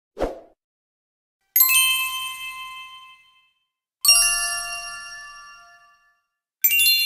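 Editing sound effects: a brief pop, then three bright, metallic bell-like chimes about two and a half seconds apart. Each chime rings several notes at once and fades away over about two seconds.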